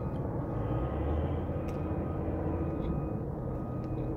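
Steady low outdoor rumble with a faint, even hum, like machinery or traffic in the distance, and a couple of faint ticks.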